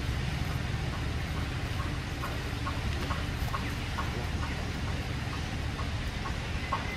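Steady low background rumble. From about two seconds in, faint short calls repeat at roughly two a second.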